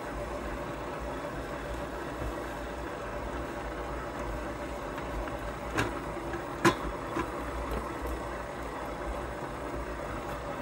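Stand mixer running steadily at its slow setting, kneading bread dough with its dough hook. Two short knocks come a little past the middle.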